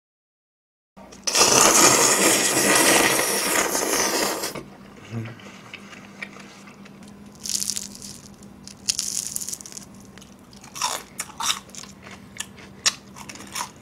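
Close-mic eating sounds: a long, loud slurp of thick black-bean noodles (jjajangmyeon) shortly after the start, then softer chewing with a few short bursts, and near the end a run of sharp, crisp crunches as pieces of fried glutinous-rice sweet-and-sour pork (chapssal tangsuyuk) are bitten.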